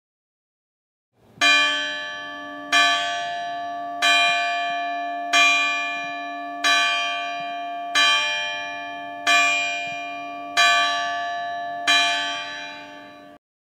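A single bell tolling: nine strokes of the same pitch, about one every 1.3 seconds, each ringing on and fading until the next. It starts just over a second in, and the ringing cuts off abruptly after the last stroke.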